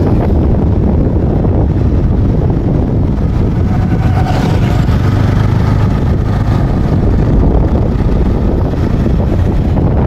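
Wind buffeting the microphone of a moving vehicle, a loud steady rush with an engine hum beneath it. A faint higher engine tone comes up about four seconds in and fades a few seconds later.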